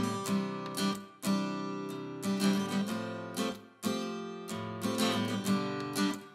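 Instrumental intro of a song on strummed acoustic guitar, chords struck in a steady rhythm.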